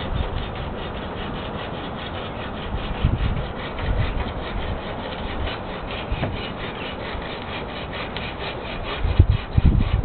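Hand saw cutting through a tree branch, in steady, rhythmic back-and-forth strokes. Heavier low thumps come in near the end.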